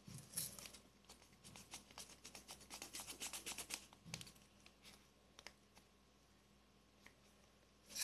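Hands working homemade slime: a quick run of small, sharp clicks and rubbing in the first few seconds, then a few scattered ticks.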